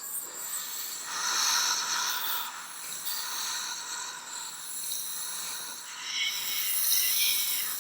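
Zombie sound effect: several chained zombies' noisy, breathy creature growls mixed with the clink and rattle of metal chains. It comes in swells, the loudest near the end.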